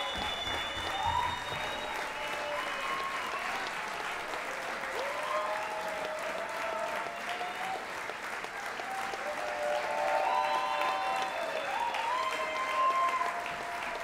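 Concert audience applauding steadily, with shouted cheers and a few high, held whistles over the clapping.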